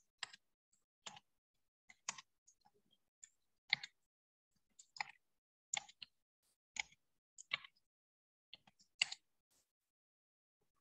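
Faint, short clicks or taps, about nine of them at irregular intervals of roughly a second, stopping near the end.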